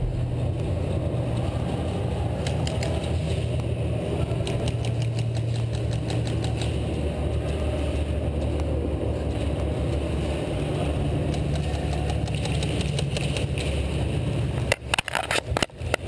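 Steady low mechanical hum filling the warehouse, with runs of faint rapid ticks from distant airsoft gunfire now and then and a few louder knocks near the end.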